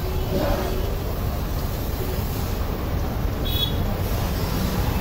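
Steady low rumble of street traffic, with one short high ring about three and a half seconds in.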